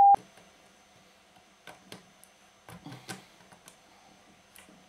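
A censor bleep cuts off right at the start. Then come scattered small clicks and light metallic knocks as hands and pliers work on the metal chassis of an opened Kenwood stereo amplifier.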